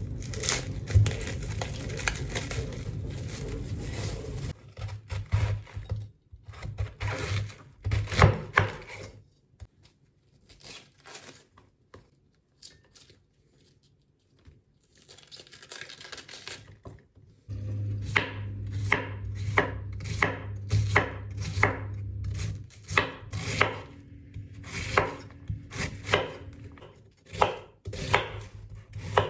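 Knife chopping food on a cutting board: scattered chops at first, then a steady run of sharp chops at about two to three a second in the second half. A low hum sits underneath at the start and again through most of the second half.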